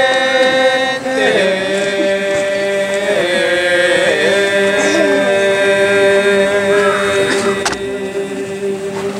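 Several voices chanting together in long held notes at different pitches, the pitch bending now and then. There is a single sharp click about three-quarters of the way through.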